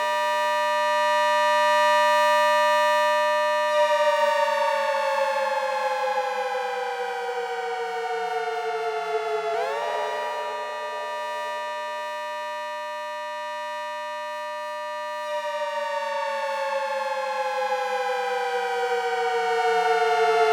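Synthesized ACA Hurricane 130-style civil defense siren made from sawtooth waves, sounding a two-note chord. It holds at full pitch, winds down slowly, snaps back up to full pitch about halfway through with a quick windup, holds again and then slowly winds down once more near the end: the rise-and-fall wail of an Attack signal.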